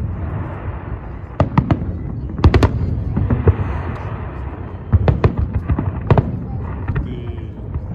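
Aerial fireworks display: shells bursting in sharp bangs, in clusters several times, with a crackling hiss from crackling stars between the bangs.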